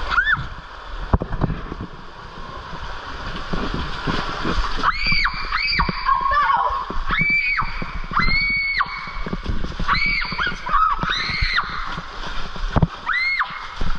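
Girls screaming again and again, about eight high-pitched shrieks starting about five seconds in, as they ride down an enclosed dark tube water slide. Under them, water rushes and splashes, with knocks of bodies against the tube.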